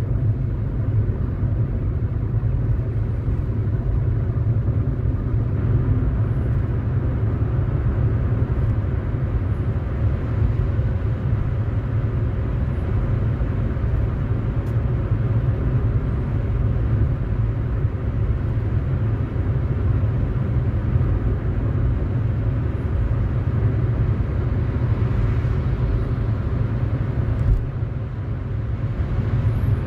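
Road noise of a moving car, heard from inside the cabin: a steady low rumble.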